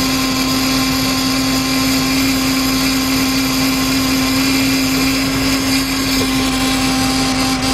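Lincoln Navigator's 5.4 V8 idling steadily with a constant drone, one ignition coil unplugged in a test for the cylinder that is misfiring.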